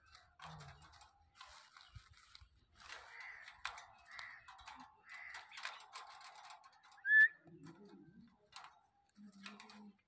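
Rose-ringed parakeet chattering softly in a run of short scratchy sounds, with one loud, sharp whistled note about seven seconds in.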